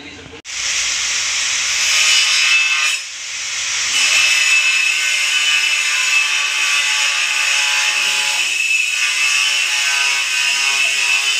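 A steady, high-pitched whirring noise like a power tool running. It starts abruptly about half a second in and carries on without a break apart from a short dip about three seconds in.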